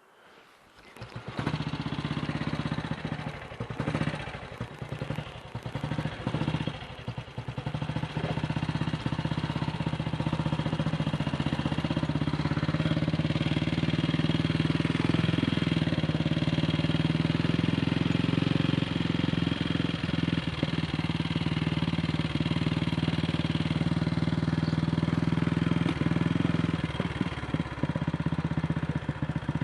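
AJS Model 8 motorcycle engine starting about a second in. It runs unevenly with dips for several seconds, then settles into a steady run.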